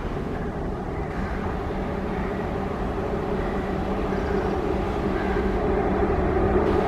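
WAG-5HA electric locomotive hauling a passenger train on the approach: a steady rumble of wheels and running gear that grows louder, with a low steady hum strengthening under it in the later seconds.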